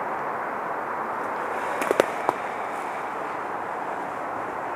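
Three sharp pops in quick succession about two seconds in, the middle one loudest, over a steady background hiss.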